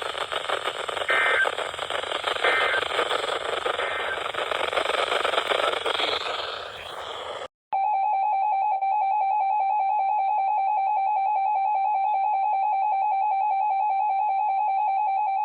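Weather radio reception full of static hiss, which cuts off abruptly about halfway through. A steady, loud emergency alert attention tone then sounds without a break, announcing a severe thunderstorm warning broadcast.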